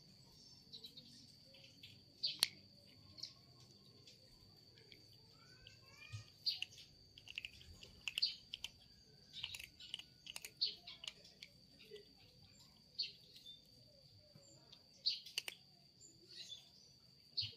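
A kitten crunching dry kibble from a plastic dish, in irregular crisp chews and clicks, a few much louder than the rest. Birds chirp faintly in the background, over a steady high-pitched whine.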